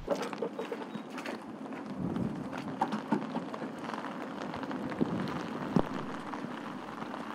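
Car being filled at a gas pump: a steady hiss with scattered light clicks and knocks, a few sharper knocks about three, five and six seconds in.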